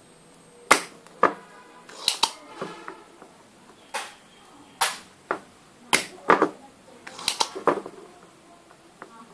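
Spring-loaded desoldering pump (solder sucker) being cocked and fired against a circuit board: a series of about a dozen sharp snaps and clicks, some in quick pairs, a few with a short ringing after them.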